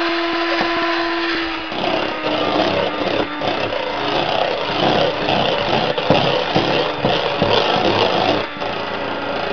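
Electric hand mixer running, its beaters churning through meringue mixture in a bowl. Its steady motor tone drops slightly in pitch about two seconds in.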